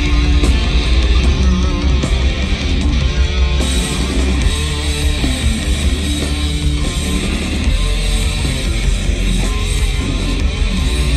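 Live heavy metal band playing loud through the stage PA: electric guitars and drums, heard from the crowd in front of the stage.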